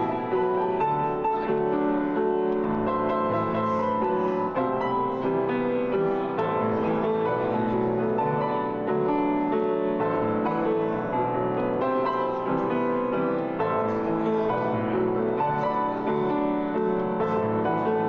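Solo piano music: an upright piano played continuously, chords and melody notes ringing over one another.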